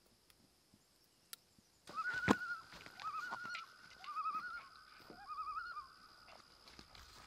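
Common loon giving its tremolo call: four short bouts of fast, wavering notes starting about two seconds in. A sharp knock sounds near the start of the first bout.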